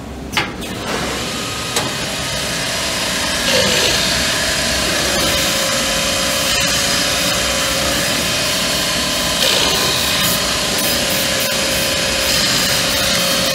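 CNC multi-boring machine working a melamine-faced panel: two sharp clicks near the start, then about a third of the way in a steady motor whine with a rasping cutting noise sets in and runs on, picking up again briefly past the two-thirds mark.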